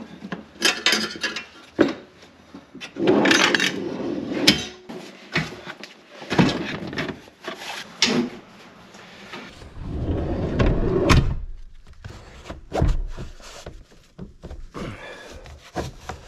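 Handling noise from a portable fridge being set onto a metal pull-out fridge slide and strapped down: knocks, scrapes and clatter, the slide running like a drawer, and strap buckles clicking near the end. A heavier rumbling scrape comes about ten seconds in.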